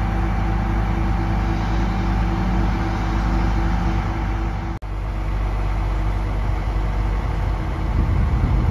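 Diesel engine of a Terex RT 175 rough-terrain crane running steadily. There is a brief dropout about five seconds in, and a louder low rumble near the end.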